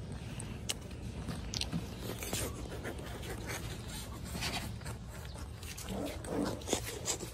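Car seat belt being handled: the webbing rustles and the metal tongue and buckle give light scattered clicks. A brief faint vocal sound comes near the end.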